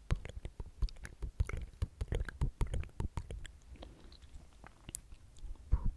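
Close-miked mouth sounds: a rapid scatter of small wet clicks and lip smacks, thinning out about halfway through.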